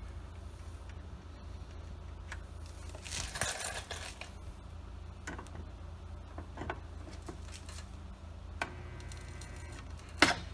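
Small handling clicks and taps, then about 8.5 s in a Chicago Electric stud welder buzzes for about a second and a half as it fuses a pulling stud onto a car body panel, with a sharp crack near the end.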